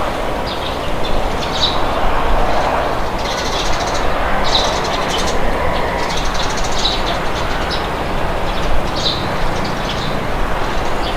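Steady rush of wind with small birds chirping repeatedly over it.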